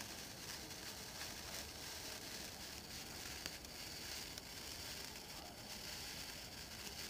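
A sparkler burning with a steady, quiet fizzing hiss and a few faint crackles.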